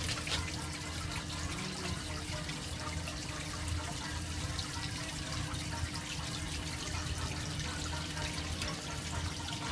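Water churning and trickling steadily in a small pool, stirred by a circulating jet, with fine splashy ticks over a steady low hum.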